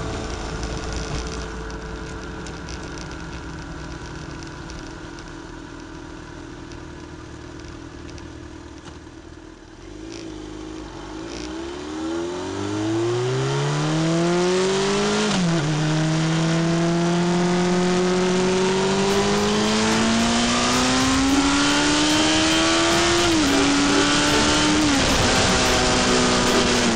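Motorcycle engine pulling up through the gears: from about ten seconds in its pitch climbs steadily, drops sharply at a gear change and climbs again, with two more quick shifts near the end, over wind and road rush. Before that, a quieter, steadier sound fades away.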